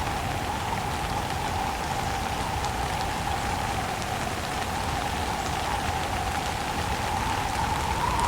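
Steady rain with wind. It eases a little in the middle and swells again near the end.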